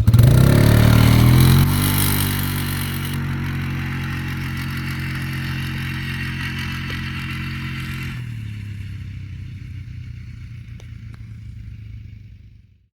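Polaris Trail Boss 325 ATV's engine accelerating hard from a start: the pitch climbs quickly, then holds steady at high revs. It drops at about eight seconds as the throttle comes off, fades, and cuts off shortly before the end. Wind noise on the microphone is heard in the first few seconds.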